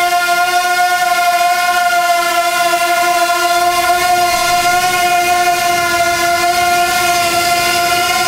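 Wingsland S6 pocket quadcopter hovering close by, its propellers giving a loud, steady, high-pitched whine.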